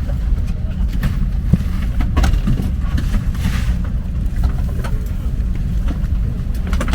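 Airbus A330-300 cabin ambience at the gate: a steady low rumble of the air-conditioning, with scattered light clicks and knocks and a brief rush of noise about three and a half seconds in.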